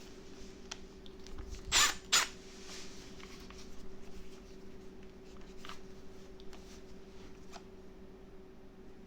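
Hands working a Milwaukee M12 drill/driver head attachment against the tool's spindle and collar, trying to fit it: scattered small clicks and taps, with two sharp clicks close together about two seconds in. A faint steady hum lies underneath.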